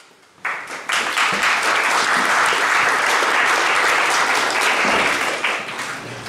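Audience applauding, rising sharply about half a second in, holding steady and dying away near the end.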